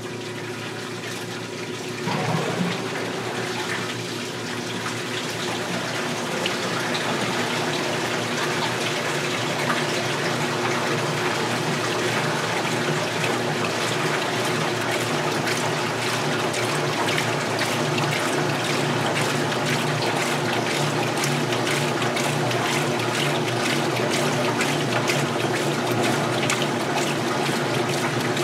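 1978 Maytag washer filling its tub: a steady rush of water pouring in, with a faint steady hum underneath, growing louder over the first several seconds.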